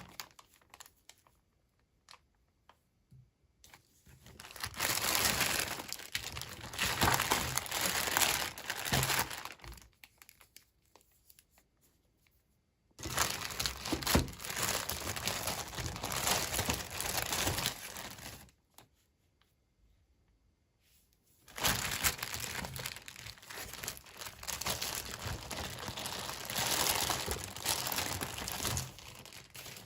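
Toy packaging being crinkled and torn open by hand, in three long bouts of rustling several seconds each, with quiet pauses between.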